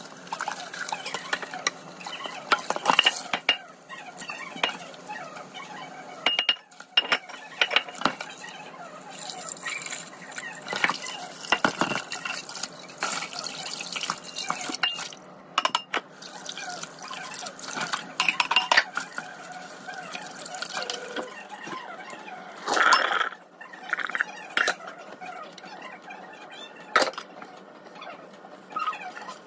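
Tap water running and splashing into a stainless steel sink while a large black nonstick pot is scrubbed and rinsed. The pot clinks and knocks against the sink many times along the way.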